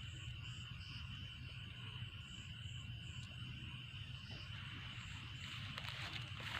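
Night chorus of insects and frogs by a river: a steady high buzz with short chirps repeating above it. A quick run of crackling clicks comes near the end.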